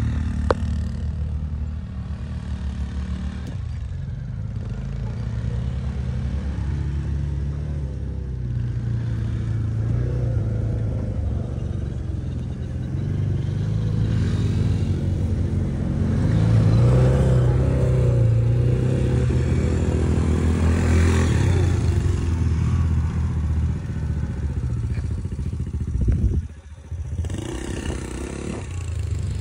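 Side-by-side utility vehicle's engine running while under way, its note rising and falling with the throttle, with a brief sharp drop in sound near the end.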